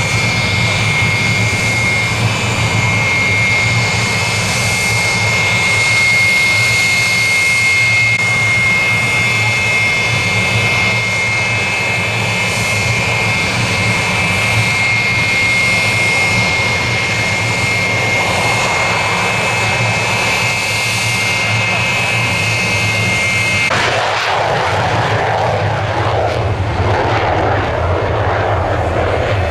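Aermacchi MB-339 jet trainer's single Viper turbojet running on the ground, a steady high-pitched whine over engine rumble. About 24 seconds in, the sound cuts suddenly to the rough noise of a jet in flight.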